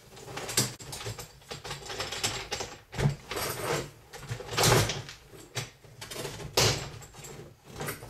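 Dishwasher racks of plastic-coated steel wire being slid out of the tub on their rails and set aside, then the metal rack rails being worked loose: a run of rattles and scrapes with several sharper clanks, the loudest near five seconds in and again about two seconds later.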